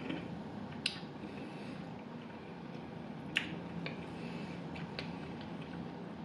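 Quiet eating sounds: a few short, sharp wet clicks and smacks of chewing, spaced a second or more apart, over a faint steady room hum.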